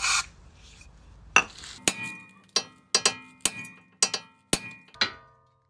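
A sledgehammer striking a steel drift about ten times to knock a ball joint out of a Toyota RAV4's cast-iron steering knuckle. Each blow is a sharp metallic clink with a short ring, coming a few a second, after a brief rustle of handling at the start.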